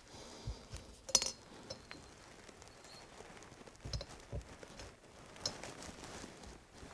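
A few light metallic clicks and taps from hands working on a golf cart engine's cylinder head, fitting the intake valve seal. The sharpest click comes about a second in.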